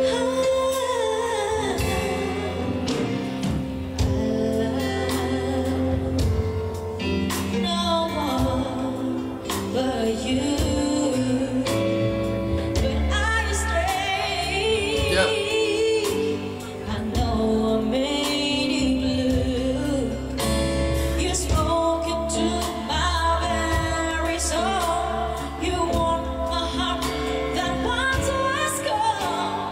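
A female singer performing a slow ballad live with band accompaniment, her voice amplified through a microphone; about halfway through she holds a long note with wide vibrato.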